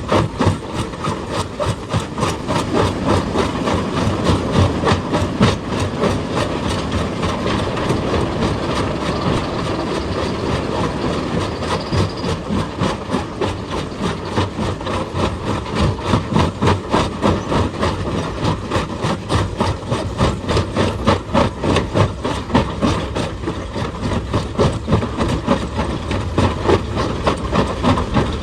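Excavator working, its engine running under a fast, steady run of clattering knocks.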